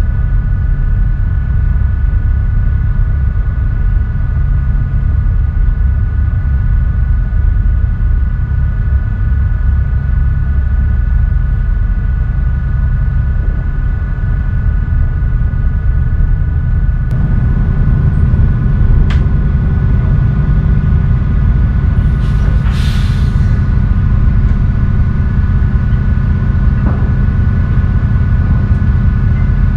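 Tugboat's diesel engines running under way, a loud steady low rumble with a steady whine above it. About seventeen seconds in the rumble grows heavier, and a brief hiss comes a few seconds later.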